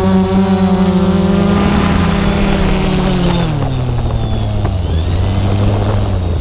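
Quadcopter drone's electric motors and propellers running with a steady, high-pitched buzz, the pitch dropping steeply a little past three seconds in as the drone touches down and throttles back, then holding at a lower buzz.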